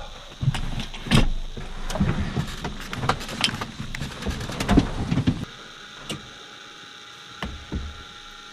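Clicks, knocks and rustling of a person climbing into a small jet's cockpit seat and handling gear. About five and a half seconds in the noise drops away, leaving a faint steady electronic tone and a few single clicks as the cockpit electrics come on.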